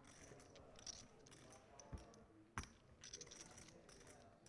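Near silence: faint room tone with a low murmur, a soft thump about two seconds in and a sharp click just after.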